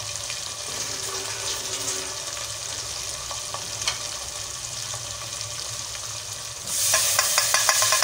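Ground spices frying in hot oil in an aluminium pot: a steady sizzle with a few scrapes and taps of the stirring spoon. About seven seconds in, the sizzle jumps much louder and crackles rapidly as more is poured into the hot oil.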